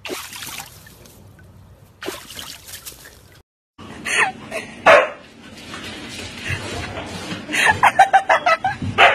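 A husky vocalising: loud short yelps, then a rapid run of short yips near the end.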